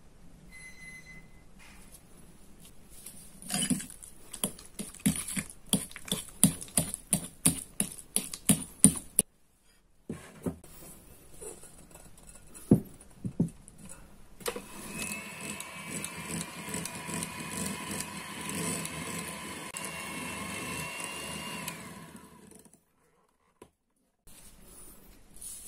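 A metal fork clinking quickly and repeatedly against a ceramic bowl while stirring mashed banana, about three strikes a second for several seconds. After a break and a few knocks, an electric hand mixer runs steadily with a whine for about eight seconds while creaming butter in a glass bowl, then stops.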